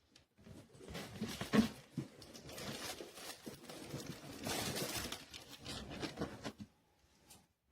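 Irregular rustling and clicking handling noises, with a sharper knock about one and a half seconds in. They stop near the end.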